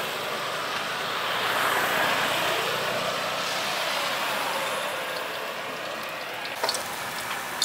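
A road vehicle passing on the street, its engine and traffic noise swelling and then fading away, with a couple of small sharp clicks near the end.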